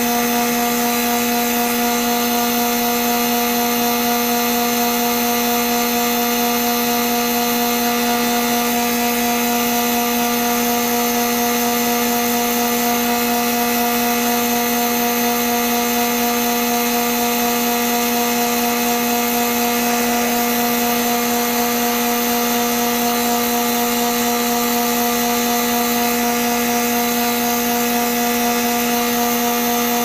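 Lathe running at about 3,700 RPM with a steady, unchanging whine, while a finishing tool cuts a cast resin pen blank on the spinning mandrel.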